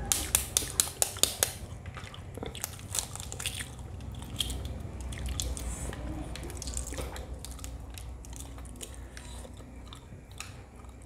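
A metal spoon tapping a balut eggshell about seven times in quick succession to crack it, followed by small scattered crackles of the cracked shell being picked off by hand.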